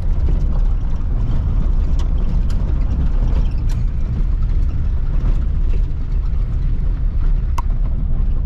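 Car driving on a loose dirt and gravel road: a steady low rumble of tyres and engine, with a few sharp clicks, the loudest near the end.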